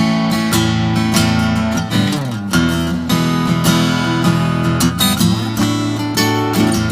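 Acoustic guitar strummed in a steady rhythm: the instrumental intro of a song, played live.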